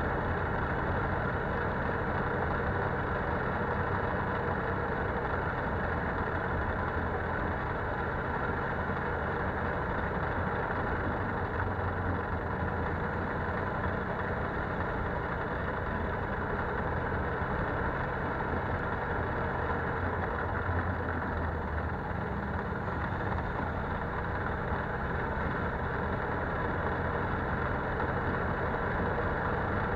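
Polaris Sportsman 570 ATV's single-cylinder engine running steadily while the quad rides along a dirt trail.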